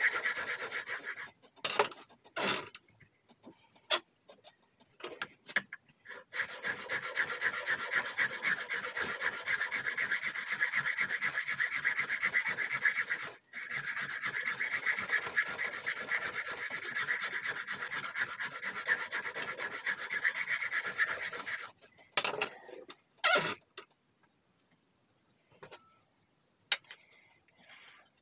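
Quick back-and-forth scraping strokes of a hand tool shaping an ash axe handle, rubbing the wood down, in long runs with short pauses. A few sharp knocks come between the runs and near the end.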